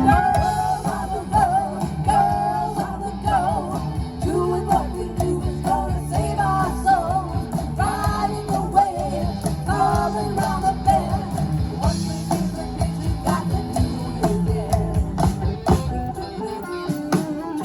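Live rock band playing: a woman singing over electric guitar and a steady beat.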